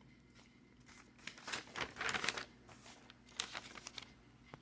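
Sheets of paper rustling and crinkling as they are handled, in two short spells.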